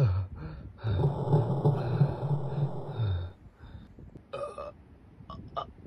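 Sound effect from a Kamen Rider Saber Primitive Dragon transformation toy: a low, rough sound held for about two and a half seconds. A few short clicks follow near the end.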